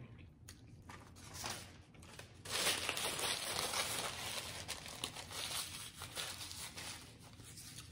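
Paper napkin crinkling and rustling as hands are wiped with it, loudest from about two and a half to four seconds in, then fading.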